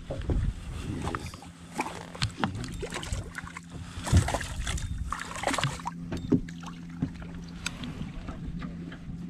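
Irregular knocks, bumps and rustles as a small hooked spotted sea trout is brought alongside a fiberglass skiff and handled aboard, with a sharp thump about four seconds in, over a steady low hum.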